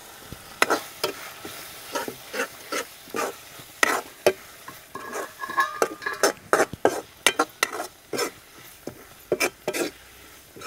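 A steel spoon stirs and scrapes a thick mustard masala paste in a metal kadai, clinking against the pan in irregular strokes two or three times a second, while the paste sizzles as the freshly added turmeric and chilli powder fry in.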